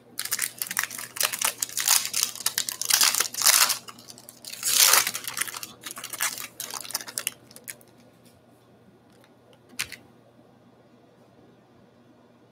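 A pack of baseball cards being torn open, the wrapper tearing and crinkling in a run of bursts over about seven seconds, loudest about five seconds in. A single click follows near the end.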